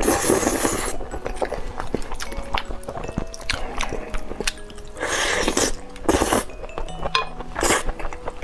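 A man slurping instant noodles, loudest in the first second and again around five to six seconds in, with chewing and chopsticks clicking against the plate in between. Light background music plays underneath.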